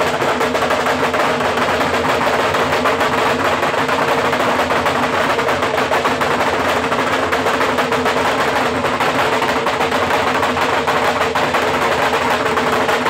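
Several Lambeg drums beaten together with thin canes: a loud, dense, rapid rattle of strokes that runs on without a break, with a steady ringing drum tone beneath.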